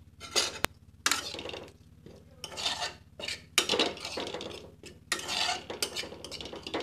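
A spatula stirring and scraping cubed potato filling around a nonstick pan, in about six separate strokes roughly a second apart.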